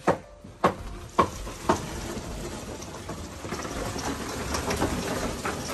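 Wet concrete poured from a bucket into a wooden column form: a few knocks about half a second apart, then a steady pouring noise for about three seconds.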